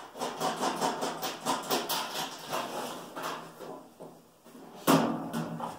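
Galvanized sheet-metal parts rattling and clanking as they are handled and fitted together: a quick run of clicks and knocks for the first few seconds, then one loud metal bang near the end.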